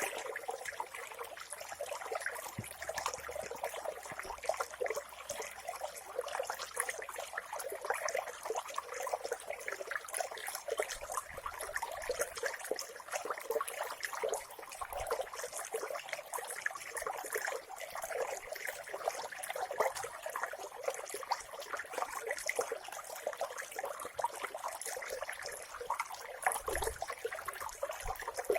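Clear mountain stream water trickling and babbling over stones, a steady stream of small splashes and gurgles.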